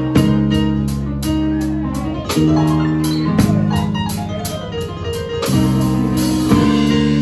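Jazz trio playing live: a digital stage piano holding and changing chords over electric bass and drums, with a cymbal keeping a steady beat of about three strokes a second.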